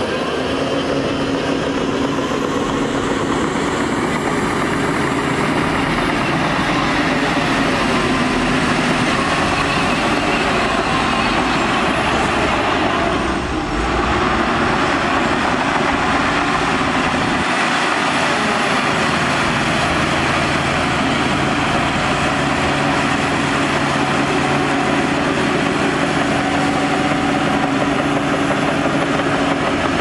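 Diesel engine of a dump truck running steadily as its bed is tipped to unload dirt. After a brief dip about halfway through, the diesel engine of a Shantui DH17 crawler bulldozer runs as it pushes dirt.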